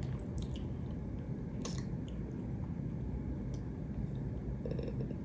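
A person chewing food close to the microphone, with a few faint scattered mouth clicks over a steady low hum.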